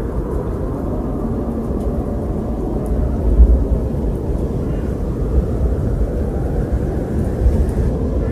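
Wind blowing steadily with a deep rumble, swelling in gusts; the strongest gust comes about three and a half seconds in.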